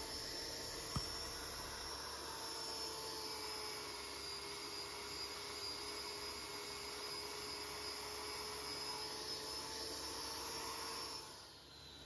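Power polisher with a foam pad running at a steady pitch, buffing the clear coat of a painted motorcycle fuel tank in the final polishing stage. One small click about a second in; the whine cuts off near the end.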